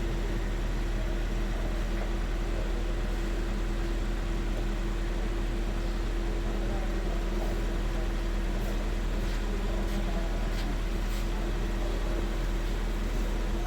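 Honda Fit engine idling steadily after a tune-up and throttle reset: an even, unchanging hum.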